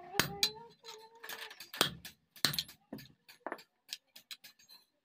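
Irregular light metallic clicks and clinks of small metal pieces and hand tools being handled and knocked together, not heavy hammering.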